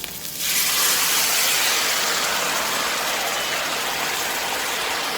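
Sauce hitting a very hot frying pan with salmon in it: a loud sizzle that starts suddenly about half a second in and slowly eases off.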